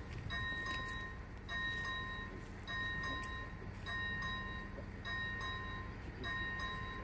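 Electronic warning bell of an AŽD 71 railway level crossing. It rings a short chime about once a second, each lasting about half a second, while the crossing is active and warning of an approaching train.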